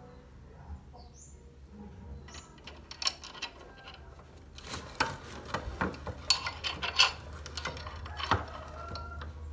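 Small steel parts clinking and tapping against a steel bench vise as an angle-grinder locking flange nut is handled and set in place: a couple of clicks about three seconds in, then a quick run of sharp metallic clinks through the second half, over a low steady hum.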